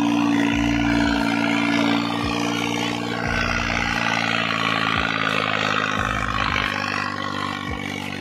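New Holland 3630 tractor's three-cylinder diesel engine running steadily under heavy load in second gear, straining against the opposing tractor in a tug-of-war pull.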